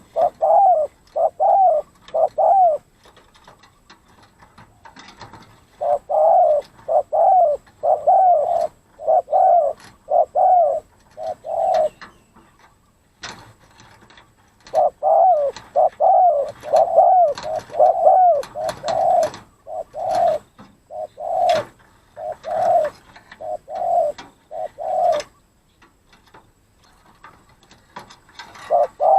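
Spotted dove cooing: runs of repeated arching coo notes, about two a second, in bouts of several seconds with pauses of a few seconds between them. Scattered sharp clicks can be heard among the bouts.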